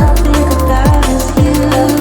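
Electronic dance music with a fast beat: deep kick drums that drop in pitch on each hit under a bass line and a melody.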